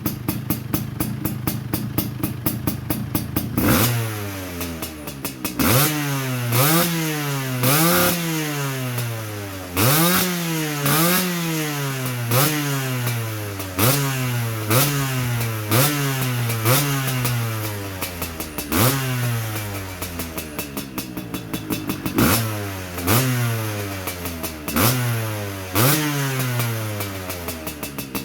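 Yamaha DT175 two-stroke single-cylinder engine with a V-Force 3 reed valve, idling and then revved in repeated quick throttle blips. Each blip rises sharply and falls back to idle, about one a second, with a brief lull in the revving about two-thirds of the way through.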